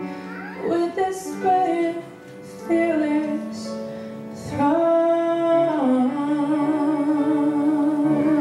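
A woman singing a slow song solo into a microphone, with long sustained notes; from about five seconds in she holds one long note with vibrato.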